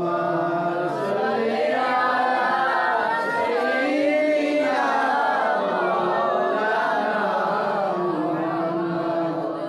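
A man's voice chanting in long, drawn-out melodic lines through a public-address microphone, as in Islamic devotional recitation, with held notes that slowly rise and fall.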